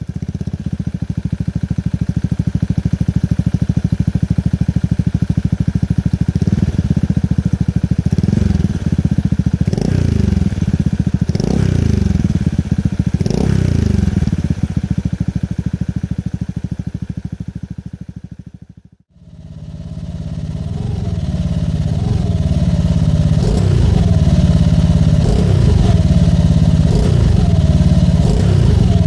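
Motorcycle engine running through a cheap Chinese aftermarket silencer, idling with throttle blips that rise and fall in pitch. About 19 seconds in the sound cuts out briefly, then comes back with short revs every second or so.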